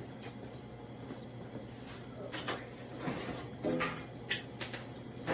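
A few faint knocks and shuffles, about two to four seconds in, over a steady low hum.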